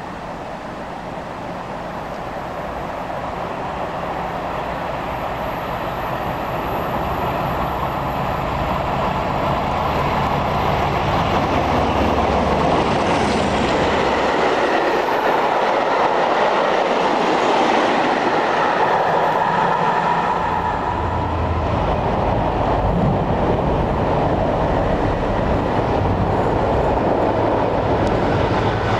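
Freight trains passing. The noise of a train of covered wagons builds over the first dozen seconds as it approaches, then holds steady and loud as the wagons run past. Later a container freight train passes.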